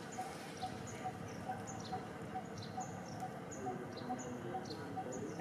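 Forest ambience of birds and insects. One short low note repeats evenly about three times a second, with high falling chirps scattered over it.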